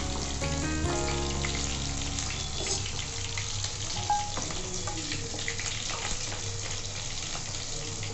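Batter-coated chicken pieces deep-frying in hot oil in a kadai: a steady crackling sizzle full of small pops.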